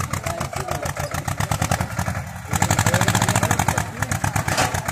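Small tractor engine chugging in a fast, even beat, getting louder about halfway through.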